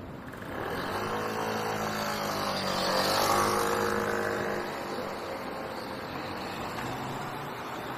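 A motor vehicle passing by: its engine hum rises to a peak about three seconds in and then fades, over steady street noise.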